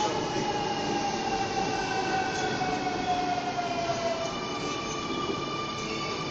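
Sydney Trains double-deck electric train running past the platform as it slows to stop, its wheels rumbling under a whine that falls slowly in pitch; a steadier whine takes over near the end.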